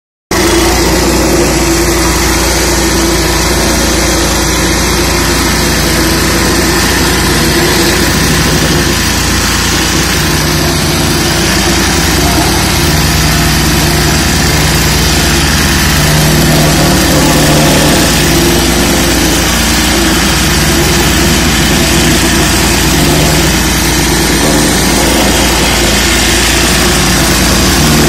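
Plate compactor powered by a 5 hp Greaves single-cylinder diesel engine, running loud and steady as the vibrating plate is walked across dirt.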